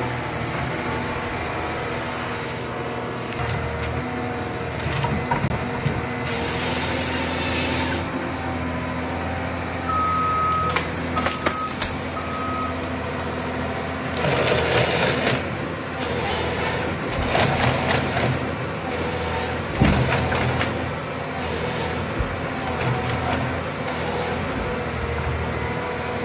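John Deere 1270G forestry harvester working, its diesel engine running steadily. Three beeps sound about ten seconds in. Bursts of noise follow in the second half, with a sharp knock about twenty seconds in.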